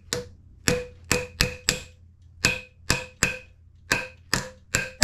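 A hammer strikes the loosened shaft nut at the bottom of a Fox 36 fork leg again and again to pop the seal and free the lowers. There are about a dozen sharp blows, mostly in quick groups of three, each with a short metallic ring.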